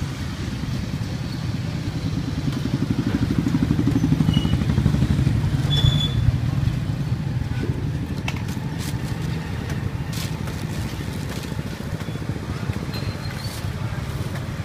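Motorbike engine running close by, a low, pulsing rumble that swells in the middle before easing off. A few sharp clicks come later on.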